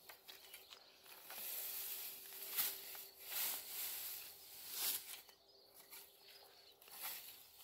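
Cut lucerne (alfalfa), slightly wilted, rustling and swishing as it is gathered and pitched onto a wheelbarrow with a hay fork, in repeated strokes.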